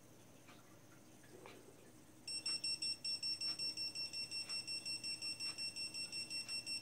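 Dog fence collar receiver (Dogtrace D-Fence 1001) sounding its warning tone: rapid high-pitched beeping, about six beeps a second, starting about two seconds in. The collar has entered the fence's warning zone and gives only beeps, with no correction pulse.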